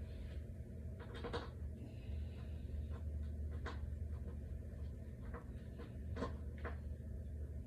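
Scattered light clicks and knocks of dresser panels and small hardware being handled during assembly, over a steady low hum.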